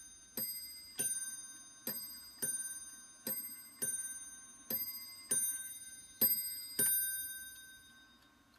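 Vintage Italian elephant mantel clock striking six o'clock: paired two-note ding-dong strokes, about one pair every second and a half, each note ringing on. The last pair fades out near the end.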